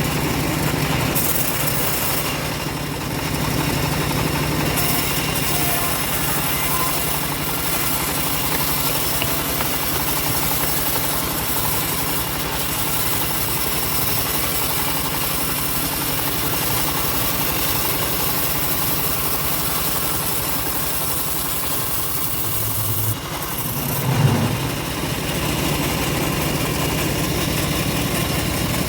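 Homemade engine-driven bandsaw mill running steadily as it saws an old teak log, the engine droning evenly. About 23 seconds in the drone briefly drops, then gives a short louder knock.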